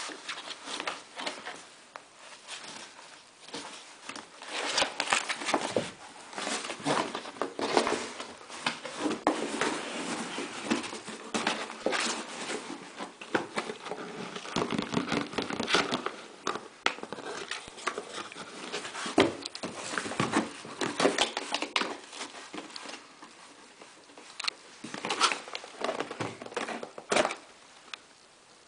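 Border collie puppy scratching, biting and pawing at a cardboard box: irregular scraping, crinkling and tapping of cardboard in uneven bursts, with a lull and a last cluster before it stops near the end.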